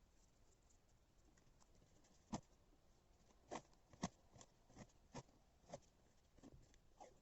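Hands handling washi tape: a handful of soft, separate taps and clicks, the sharpest about two seconds and four seconds in.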